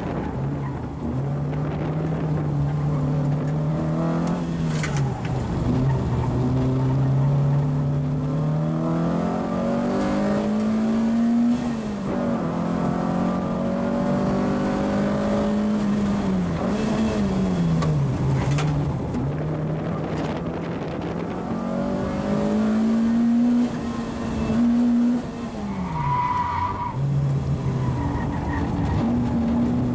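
Peugeot 106 Rallye's four-cylinder engine heard from inside the cabin at racing pace. The engine climbs in pitch under hard acceleration and drops sharply several times on gear changes and lifts into corners, with a short tyre squeal near the end.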